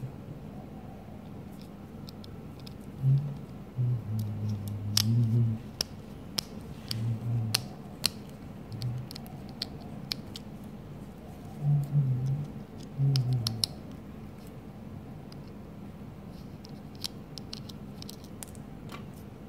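Small plastic headset parts and a small screwdriver being handled during reassembly: scattered sharp clicks and light scratches, with low muffled bumps now and then.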